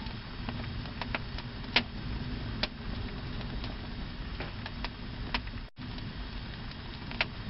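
Crackling fire sound from a TV fireplace video: a steady hiss and low rumble with irregular pops and snaps, the loudest a little under two seconds in. It cuts out for an instant a little before six seconds.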